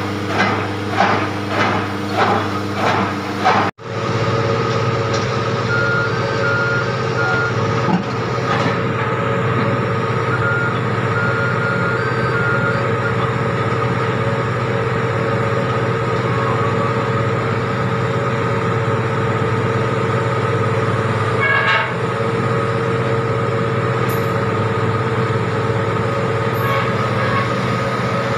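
A rhythmic knocking about twice a second for the first few seconds, then, after an abrupt cut, the steady running drone of a bored-pile drilling rig's diesel engine. Two short runs of electronic beeps sound over it a few seconds after the cut.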